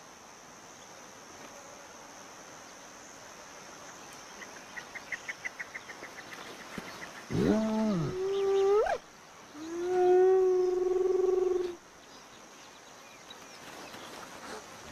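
Spotted hyena calls about halfway through: first a call that swoops up and down in pitch and ends on a rising note, then a steadier call held for about two seconds.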